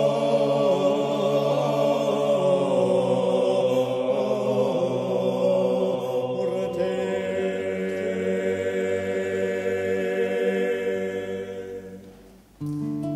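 A choir singing a cappella, holding the song's closing chords in long sustained notes that fade out about twelve seconds in. Just before the end a new piece starts abruptly with strummed acoustic guitar.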